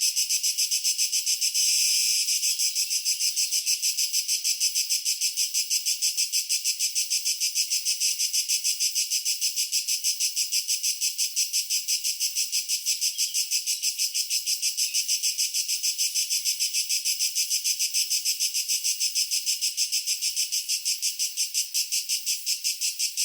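Tree cricket calling: a high-pitched, steady train of rapid, evenly spaced pulses, about four or five a second, which keeps on without a break.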